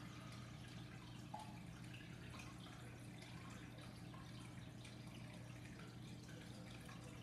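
Quiet room tone: a steady low electrical hum with faint scattered ticks, one a little louder about a second and a half in.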